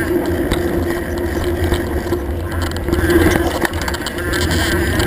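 Mountain bike riding over dirt singletrack, heard from a camera mounted on the bike: a steady rumble and rattle from the tyres and frame, with a few scattered clicks.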